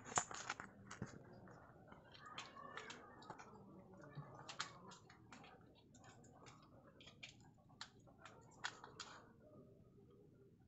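Near silence: quiet room tone broken by faint, irregular ticks and clicks, a few a second, with a sharper click right at the start.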